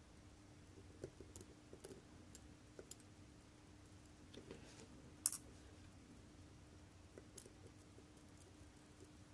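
Faint, scattered clicks of steel tweezers on the small gear wheels of a vintage watch movement as the automatic winding wheels are lifted out, with one sharper click about five seconds in, over a faint steady hum.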